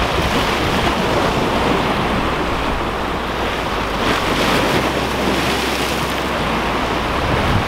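Ocean surf breaking and washing over jetty rocks in a steady rush, with wind rumbling on the microphone.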